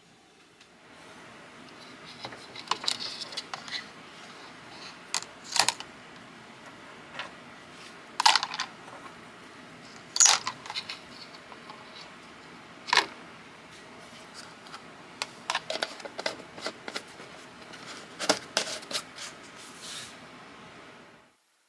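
Sharp metal clicks and clinks of a small pipe wrench and hand tools being handled, scattered irregularly over a steady hiss, with several louder clacks. The sound cuts off abruptly near the end.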